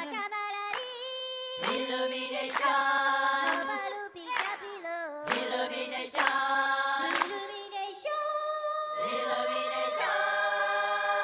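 A cappella choir singing a jingle: several voices in harmony sing short phrases, some sliding in pitch, then hold one long chord from about ten seconds in.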